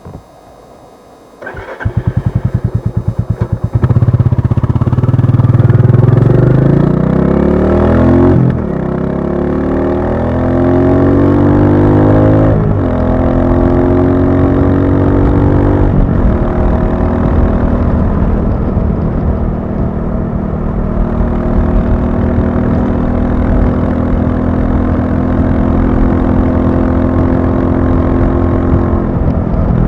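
Royal Enfield Classic 350's single-cylinder engine. It begins thumping steadily about a second and a half in, then pulls away under acceleration from about four seconds in. The pitch climbs and drops three times as the rider shifts up through the gears, then the engine settles to a steady cruising note.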